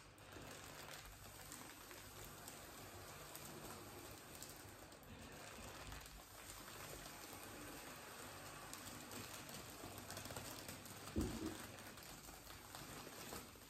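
Faint, steady crinkling and rustling of a Mylar foil triceratops balloon as it is inflated and its creases fill out, with a short louder bump near the end.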